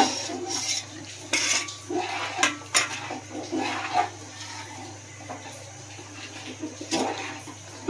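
Steel ladle scraping and clinking against the inside of a metal cooking pot as a thick curry is stirred, in irregular knocks and scrapes. The curry is being stirred without a break while rice-flour paste thickens it.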